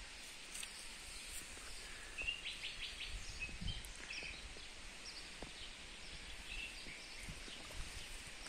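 Faint outdoor ambience with birds chirping: scattered short, high calls, busiest about two to four seconds in.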